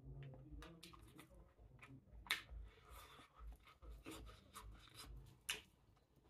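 Close-miked eating sounds: soft, scattered clicks and crackles of chewing fried fish, two of them sharper, over faint low thumps.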